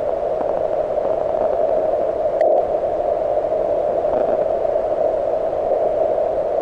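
Receiver hiss from the MTR4B HF CW transceiver: steady band noise heard through its narrow CW filter, with no Morse signal standing out of it. A brief click comes about two and a half seconds in.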